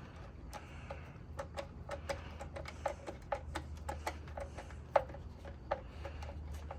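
Irregular light clicks and taps, two or three a second, from parts and tools being handled during the test fit.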